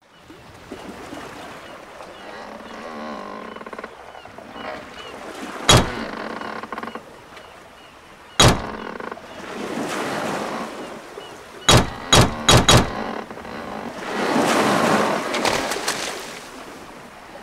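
Sound effects of an old sailing ship on the water: washing waves that swell and fade, with creaking, cut by sharp cracks, one about six seconds in, one about halfway, and four in quick succession about twelve seconds in.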